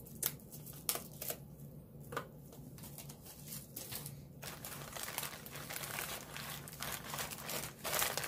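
Plastic packaging crinkling as packets of syringes and needles are handled and pulled out of a plastic bag: a few separate crackles at first, then continuous rustling from about halfway in.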